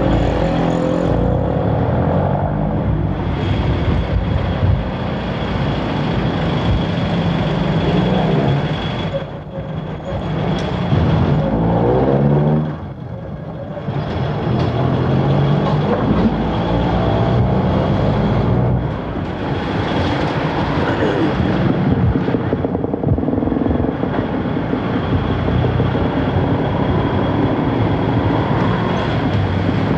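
Motor vehicle engine running over road noise, its pitch rising and falling several times as it speeds up and slows. There is one long climb in revs about a third of the way in.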